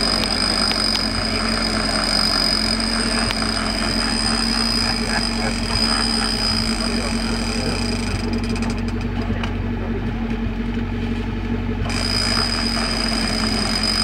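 Off-road buggy's engine idling steadily, a constant low hum.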